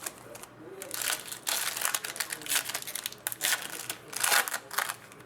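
Plastic trading-card pack wrapper being torn open and crinkled in the hands, in irregular rustling bursts.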